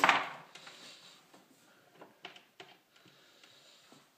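A sharp clatter at the start, then a few faint, scattered clicks and taps as hands fit a brass rifle case into the case holder of a Hornady Lock-N-Load neck turning tool.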